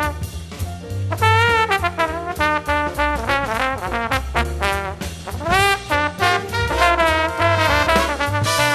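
Jazz band playing: a brass lead line with gliding, wavering notes over bass and drums.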